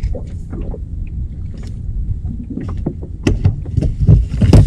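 A small boat drifting at sea: water slapping and knocking against the hull, over a low rumble of wind on the microphone, with the loudest knocks near the end.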